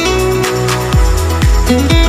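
Background music: plucked-string melody over sustained notes, with a deep electronic bass drum coming in about a second in and beating about twice a second.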